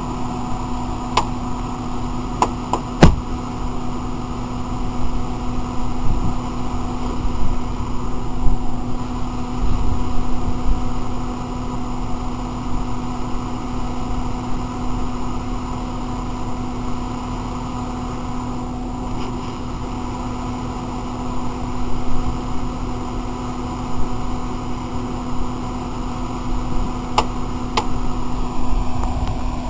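Off-road SUV engine running at low revs, stuck partway up a rocky hill climb, with a steady rumble that swells now and then. A few sharp clicks come near the start and again near the end.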